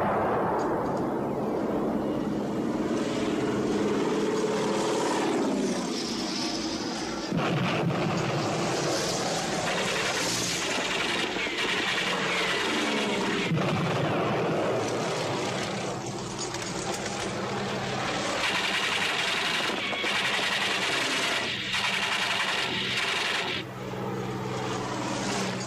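Battle sound effects: propeller biplane engines droning and sweeping past with a falling pitch, twice, over explosions and gunfire.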